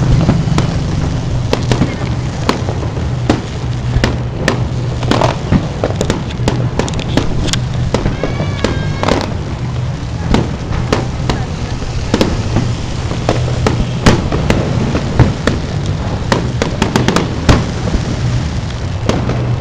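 Aerial fireworks display: shells bursting in a rapid, irregular run of loud bangs and crackles over a steady low hum.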